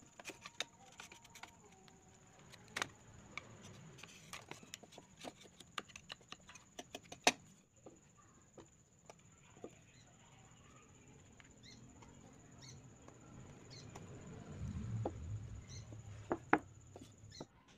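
Small blade cutting and shaving green bamboo: a quick string of sharp clicks and snaps in the first half, then low handling rumble and two sharp knocks near the end as the tube is handled.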